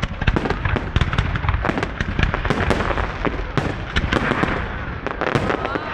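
Festive fireworks display: many sharp bangs and crackles in rapid, overlapping succession.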